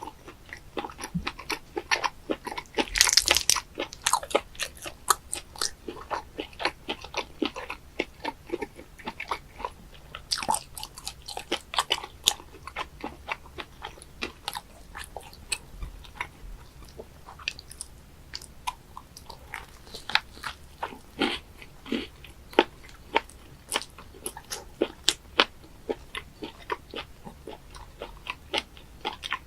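A person chewing and biting raw live octopus (sannakji): a steady run of irregular wet smacks and crunchy bites, with a louder flurry about three seconds in.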